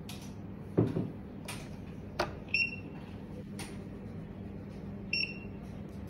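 A knock and a few sharp clicks from the AA batteries being handled in the hornbill smart lock's battery compartment, then two short electronic beeps from the lock, one about two and a half seconds in and one near the end.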